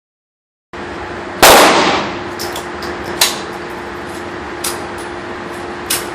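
A single gunshot from a Hi-Point 995TS 9mm carbine about a second and a half in, ringing off for half a second, followed by four or five fainter sharp impacts over a steady background hum.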